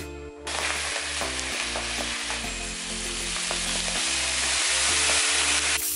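Crushed malt grain pouring in a steady hissing stream from a plastic bag into the brew kettle's malt pipe, starting about half a second in and stopping just before the end.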